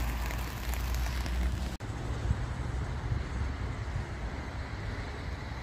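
Wind rumbling on the microphone, with a hiss of traffic on rain-soaked roads for the first couple of seconds. The hiss cuts off abruptly, leaving mostly the low wind rumble.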